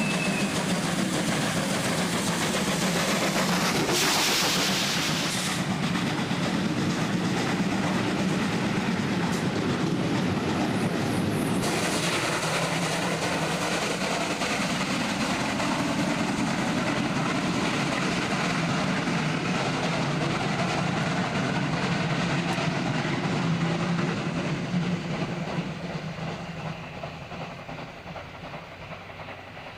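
German 2-10-0 steam locomotive and its coaches passing, wheels clattering over the rail joints, with a loud burst of hiss about four seconds in. The sound fades near the end as the train moves away.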